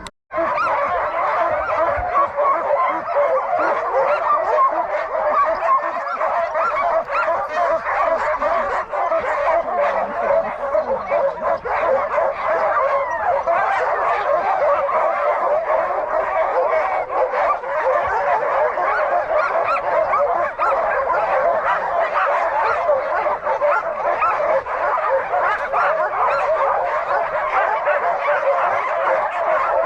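A team of Alaskan huskies barking and yelping together in a continuous, overlapping din, the excited noise of sled dogs waiting to run.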